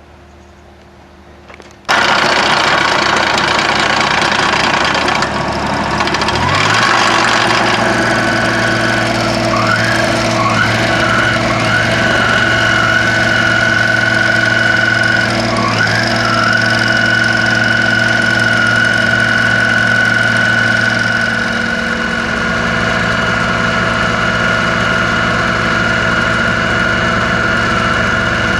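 The engine of a Ditch Witch XT850 excavator tool carrier starts about two seconds in, picks up speed a few seconds later and runs steadily. A high whine wavers up and down for several seconds, then holds steady.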